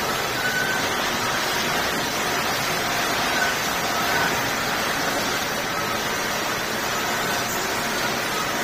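Steady, even machinery noise of a roll-fed film-processing machine running, white plastic film feeding over its rollers, with faint brief high tones now and then.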